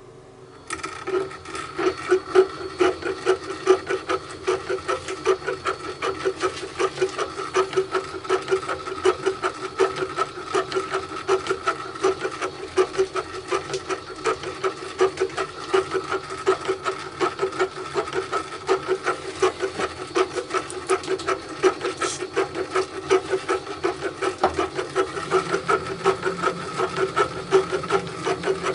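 A small bench drill-mill machine starting up about a second in and running with a fast, even, rhythmic clatter.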